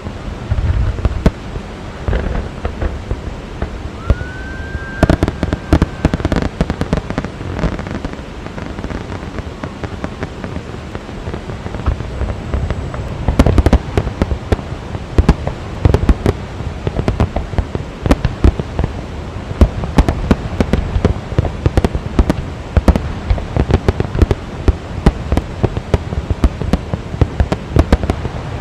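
Fireworks display: a dense, continuous run of bangs and pops, thickest in the second half. About four seconds in, a short rising whistle sounds.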